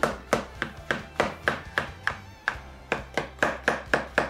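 A kitchen knife slicing shiitake mushrooms into thin strips, the blade tapping on the cutting board in an even rhythm of about three to four strokes a second.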